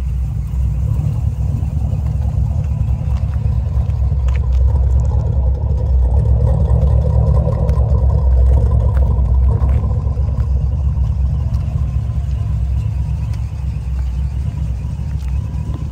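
1973 Chevrolet Corvette's V8 running with a steady low rumble that swells a little around the middle and then eases off.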